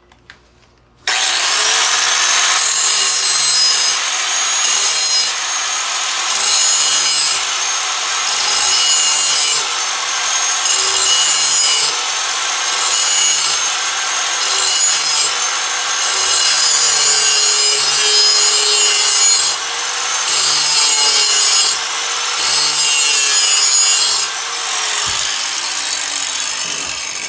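Angle grinder spinning up about a second in, then grinding a steel lawn mower blade in repeated passes, the level swelling and dipping with each pass, to take metal off the heavy end and balance the blade. The motor winds down near the end.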